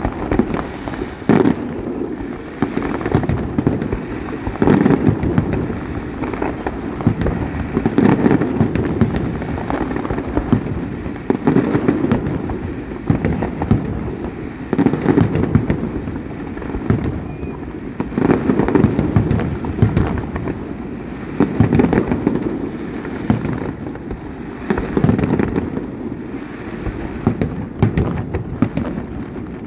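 Fireworks display: a dense, continuous barrage of bangs and crackling reports, swelling into louder clusters every few seconds.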